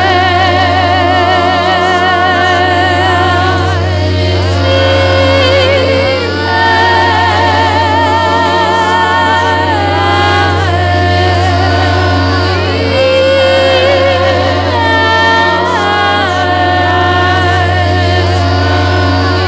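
Female voice singing long held notes with vibrato, several vocal lines layered at once, each sliding up into its pitch. Underneath runs a steady low drone and a few steady tones from loudspeaker-and-microphone feedback instruments.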